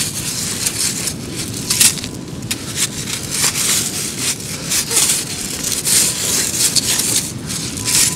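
Long-handled metal sieve scoop digging into a shingle beach: repeated crunching and scraping of pebbles against the steel basket as it is driven in and lifted out.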